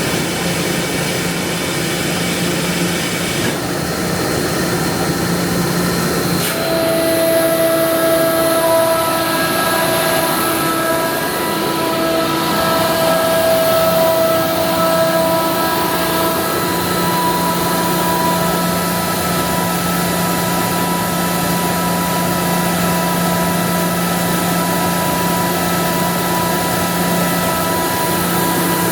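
Ingersoll Rand SSR-EP60 rotary screw air compressor running steadily, a loud hum with a hiss of air. About six seconds in there is a click, and a steady multi-toned whine comes in and holds.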